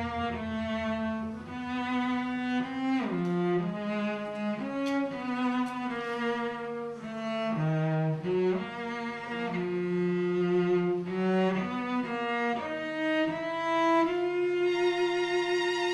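Live orchestral strings with a cello carrying a slow melody of sustained notes that slide from one pitch to the next; near the end a higher note is held with vibrato.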